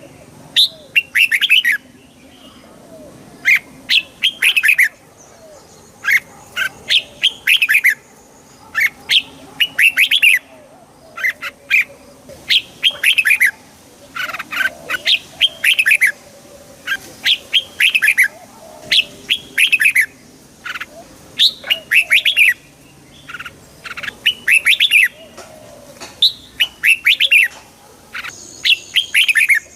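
Red-whiskered bulbul singing: short, bright phrases of a few quick warbled notes, repeated every second or so with brief pauses between them.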